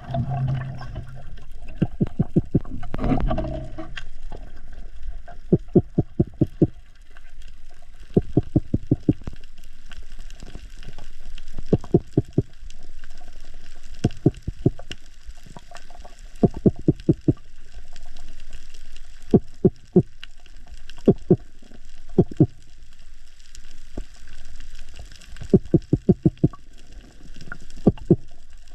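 Underwater sound on a coral reef: a steady faint crackle, broken by short runs of four to six quick low clicks every second or few seconds.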